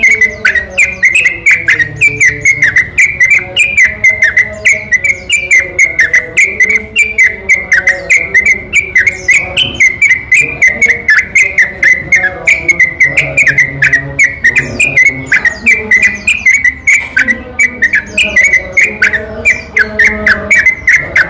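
Yellow-vented bulbul song played as a lure recording: a long, unbroken string of short, loud whistled chirps, about three or four a second.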